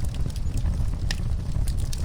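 Wood fire in a fireplace crackling: scattered sharp pops, a clearer one about a second in, over a steady low rumble of burning.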